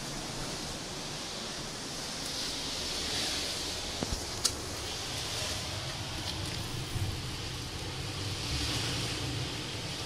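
Atlantic surf washing against the rocks below a sea cliff, a steady hiss that swells twice, with low wind rumble on the microphone and a few sharp clicks about four seconds in.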